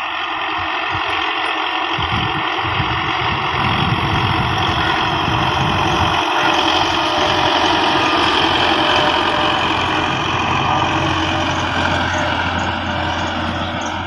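Belarus 510 tractor's diesel engine running steadily as it pulls a land leveller across ploughed soil. It grows louder as the tractor draws near, about halfway through, then eases slightly.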